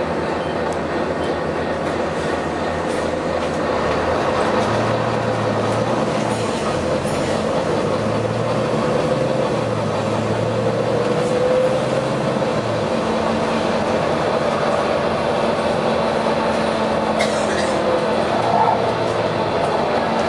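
Volvo B9TL bus's engine and drivetrain running under way with steady mechanical noise, a low pulsing engine note in the middle stretch and a faint whine that rises and then falls about halfway through.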